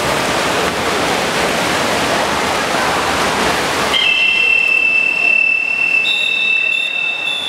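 A steady rushing noise of splashing water, then about four seconds in, long high whistle blasts at two pitches that sound together and overlap.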